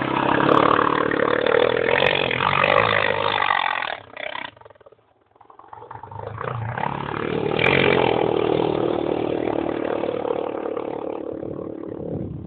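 Quad ATV engine revving hard under load. It fades out about four seconds in, comes back and builds to a peak a few seconds later, then runs steadily until it drops off near the end.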